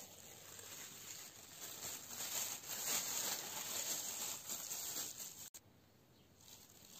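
Thin disposable plastic glove crinkling and rustling as it is pulled onto a hand, cutting off abruptly about five and a half seconds in.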